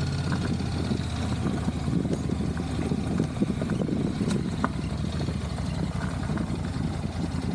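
Honda NC750X motorcycle's parallel-twin engine running at low revs as the bike pulls away and is ridden slowly and gently.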